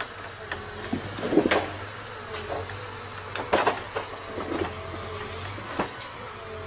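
Timber truck's diesel engine running steadily to power its loader crane's hydraulics, with a wavering hydraulic whine and repeated wooden knocks and clunks as logs are handled, the loudest about one and a half and three and a half seconds in.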